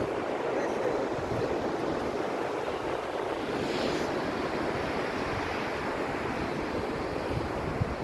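Ocean surf washing steadily onto a beach, with a brief louder hiss of breaking water about three and a half seconds in, and wind buffeting the microphone.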